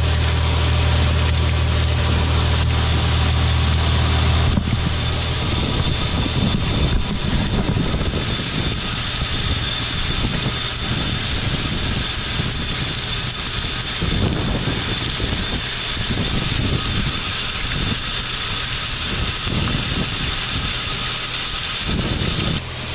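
A tractor and grain-handling machinery running steadily while corn is augered into a grain bin. About four and a half seconds in, the low engine hum drops back and a rougher, fluttering noise takes over.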